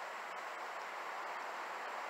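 Flowing stream water: a steady, even rush with no single sounds standing out.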